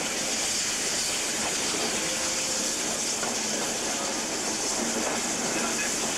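The 'Garrafeta' steam-hauled heritage train running, heard from an open carriage window: a steady rushing noise of the moving train with the locomotive's hiss, without a break.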